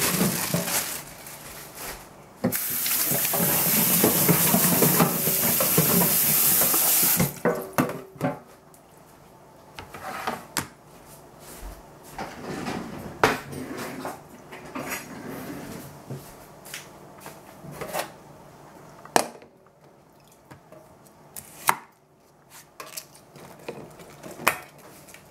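Tap water running into a pot of Brussels sprouts in a stainless steel sink, rinsing them, briefly interrupted about two seconds in and shut off about seven seconds in. Then scattered knocks and clinks as a plastic cutting board, the metal pot and a knife are set down on the tiled counter.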